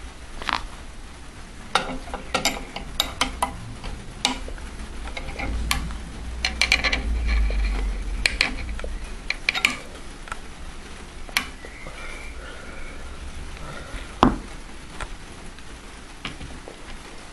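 Small metallic clicks, taps and rattles as a hand-held dial luggage scale and its steel test rig are handled and pulled on. There is a low rumble for a few seconds in the middle and one sharper knock near the end.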